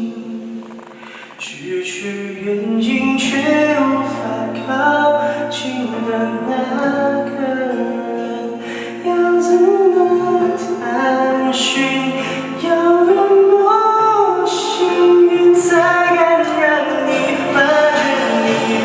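Vocal music: a sung melody over held notes, with several voices sounding together.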